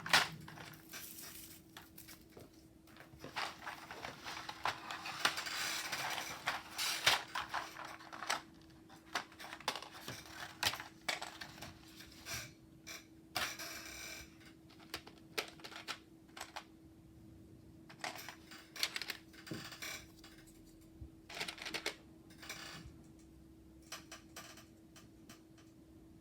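PBT plastic keycaps and their packaging being handled: irregular light clicks and clatter, with a few stretches of rustling, over a faint steady hum.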